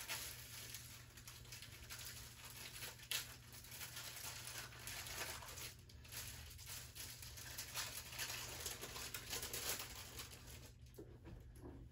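Paper wrapper of a sterile glove pack rustling and crinkling as it is unfolded and opened flat, in short, irregular rustles with a few sharper crackles.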